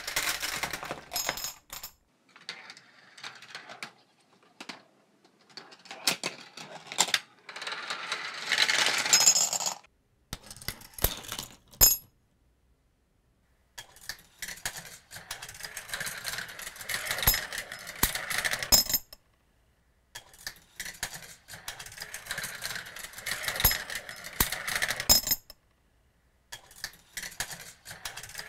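Steel and glass marbles rolling and clattering down the plastic tracks and metal rails of a GraviTrax marble run, with bright metallic tings as they drop into the die-cast metal bed of a 1976 Matchbox Lesney Site Dumper toy truck. The run repeats several times, each breaking off into a short silence.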